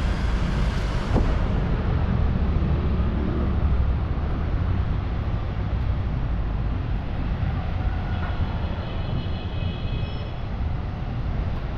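Steady low engine rumble, heaviest in the first few seconds and easing off after.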